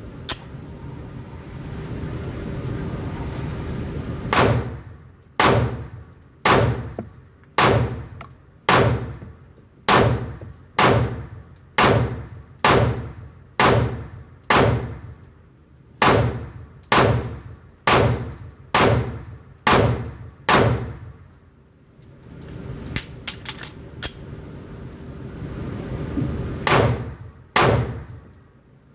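Palmetto State Armory Dagger 9mm pistol fired at a steady pace of about one shot a second, about seventeen shots in a row, each echoing in an indoor range booth. After a pause of a few seconds with a few light clicks, a second string of shots begins near the end.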